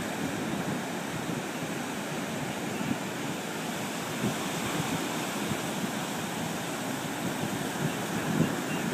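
Steady rush of ocean surf, with some wind on the microphone.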